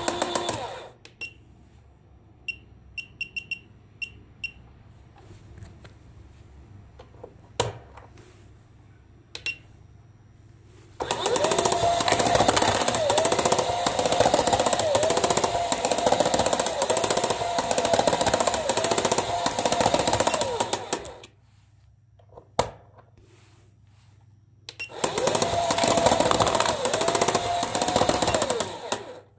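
Football coin bank toy's small DC motor and plastic gears driven at 12 V from a bench power supply, running with a clattering whine that rises in pitch as it comes up to speed, in two spells: a long one about eleven seconds in and a shorter one near the end. A few short beeps and clicks come in the quiet stretch early on.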